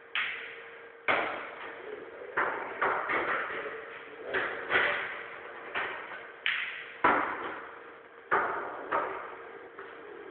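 Pool balls clacking on a pool table: a cue strikes the cue ball and balls knock together and against the cushions. It is a run of about a dozen sharp clicks at uneven intervals, each trailing off briefly.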